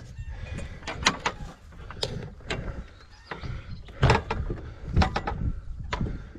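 Gravel bike clattering over a rough track: irregular sharp knocks and rattles over a steady low rumble.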